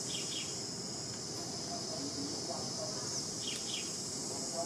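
Steady high-pitched drone of insects, with short paired chirps twice, near the start and about three and a half seconds in.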